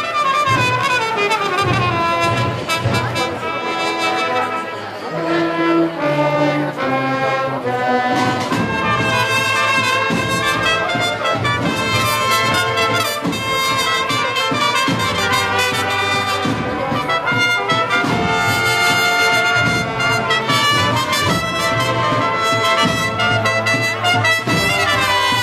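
Brass band of trumpets, cornets, trombones and tubas playing a Holy Week processional march, with a falling bass line about a third of the way through.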